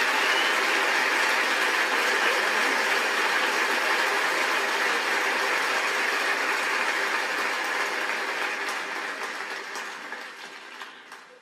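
Audience applause that dies away over the last few seconds, thinning into scattered single claps before it stops.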